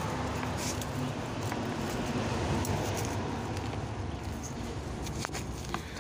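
Small metal trowel scraping and digging into dry potting soil in a plant pot, a steady gritty scratching with a low rumble under it and a few sharp clicks near the end.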